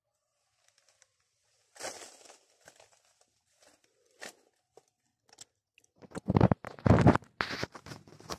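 Scattered crackles and rustles of leaves and twigs. From about six seconds in comes a run of loud knocks and scrapes as a phone is picked up and handled, rubbing against its microphone.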